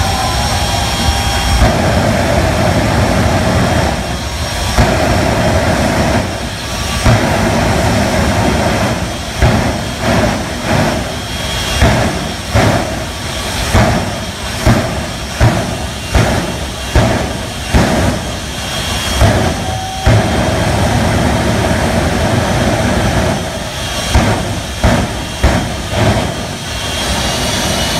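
Jet engine on a monster fire truck running loud and steady as it torches a burning Jeep. It gives a string of sharp surges about once a second through the middle and again near the end.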